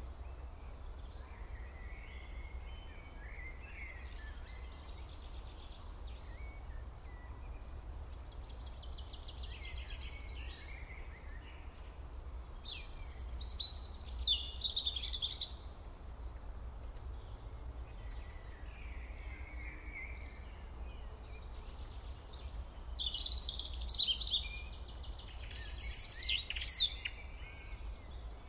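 Birds chirping and calling in short scattered phrases, loudest in bursts about halfway through and again near the end, over a steady low hum.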